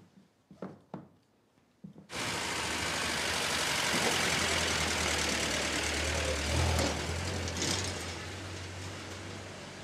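A few short knocks. Then, about two seconds in, a vintage car's engine starts to be heard running steadily with a low hum as the car drives up, easing off toward the end.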